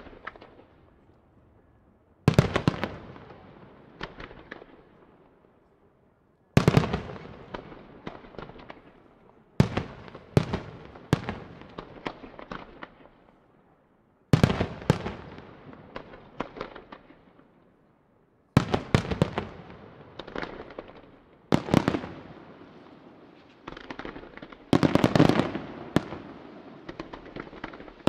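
Aerial firework shells bursting, a sharp bang every few seconds, each trailing off over a second or two. Toward the end the bangs come in quicker succession and overlap.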